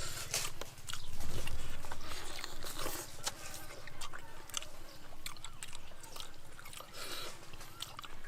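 A person biting and chewing food, with many short irregular clicks.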